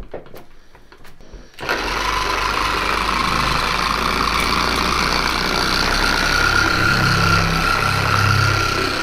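A few light knocks, then a Porter Cable 7424XP dual-action polisher starts about one and a half seconds in and runs steadily, working a foam pad over the car's paint. Its hum carries a whine that rises a little in pitch.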